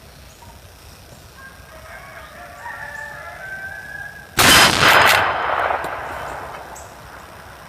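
A rooster crows, then about halfway through comes a single loud shot from a Winchester Model 1886 lever-action rifle in .45-90 firing a black-powder load. Its report echoes and dies away over a couple of seconds.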